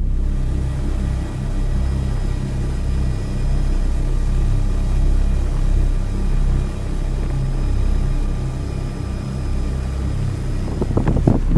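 Steady low engine rumble of a motor running at constant speed. Near the end, rough, irregular gusts of noise come in on top.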